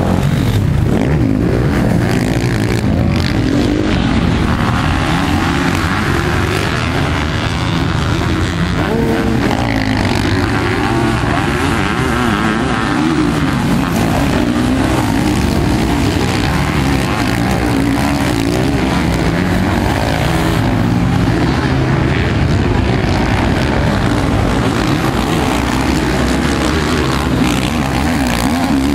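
Engines of several motocross bikes and a sidecarcross outfit running at once on a dirt track, their pitch rising and falling as the riders open and close the throttle.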